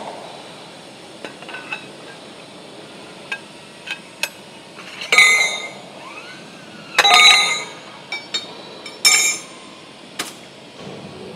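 Scattered metal-on-metal clanks and clinks, each ringing briefly. The loudest come about five, seven and nine seconds in, with lighter ticks between.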